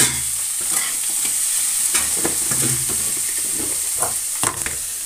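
Flat metal spatula scraping and knocking against a metal kadai in irregular strokes as carrots, peas and potatoes are stirred, over a steady sizzle of the vegetables frying in oil. A sharp clack comes right at the start.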